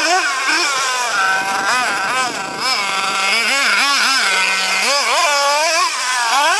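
Small nitro engine of a Hobao Hyper ST RC truggy revving up and down over and over as it is driven, its pitch rising and falling with the throttle and held steady for a moment near the middle. The engine was running lean from a fuel-pressure problem, which the owner later traced to the fuel tank and lines.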